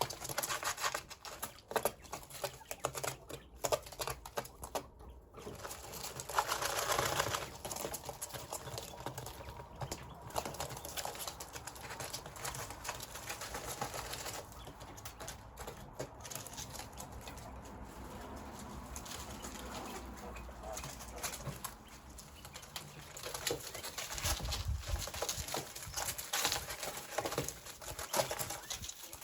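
Coturnix quail in their pen, tapping with sharp pecks that come in quick irregular runs, with soft bird calls among them.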